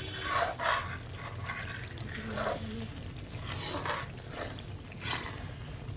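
Metal spoon stirring and scraping a spice masala that is frying in oil in a pan, in scattered strokes over a steady low hum. There is a sharp clink of metal on metal about five seconds in.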